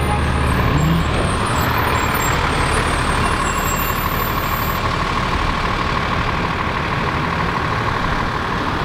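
City street traffic: a steady wash of road noise, with a heavy vehicle's engine running low and loud in the first second.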